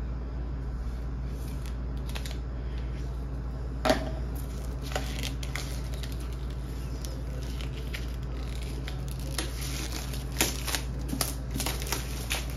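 Packaging being handled and unwrapped by hand: scattered crinkling and small clicks, with one sharp click about four seconds in, over a steady low hum.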